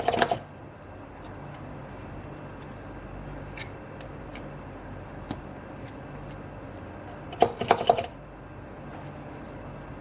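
Small hard parts handled on a workbench: a few light ticks, then a quick rattle of clicks about seven and a half seconds in, over a steady low hum.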